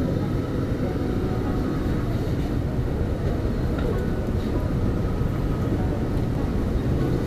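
Steady low rumbling street noise, with a few faint high tones running through it.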